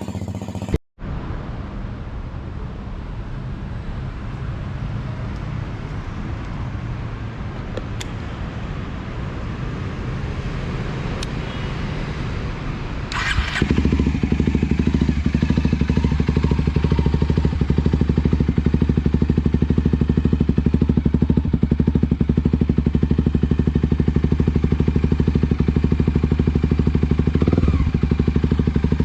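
Kawasaki Ninja 250 motorcycle engine idling steadily. About halfway through, after a brief clatter, it runs louder with a fast, even exhaust pulse.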